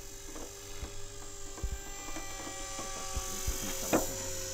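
Steady whine of a distant RC model aircraft's motor, dipping slightly in pitch around the middle, over soft handling knocks from a model glider's wing being fitted together, with one sharp click about four seconds in.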